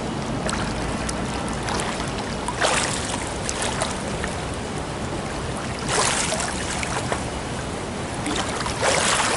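Splashing from a swimmer doing one-arm backstroke: three splashes about three seconds apart as the arm strokes into the water, over a steady rush of water noise.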